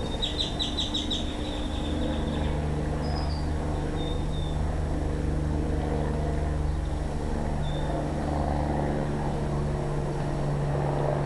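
Steady low mechanical hum, with a bird's quick trill of high chirps in the first two seconds and a few single high chirps later.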